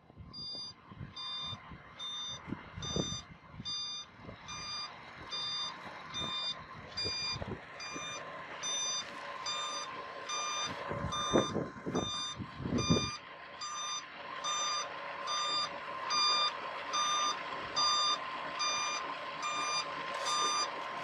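Concrete mixer truck's reversing alarm beeping steadily, about two beeps a second, as the truck backs up, over the low rumble of its diesel engine. The rumble is heaviest in the first half and drops away a little after the middle.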